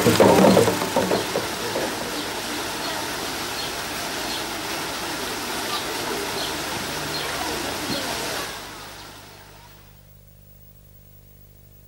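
Water from a stone park fountain splashing and falling in a steady rush, fading out about nine seconds in.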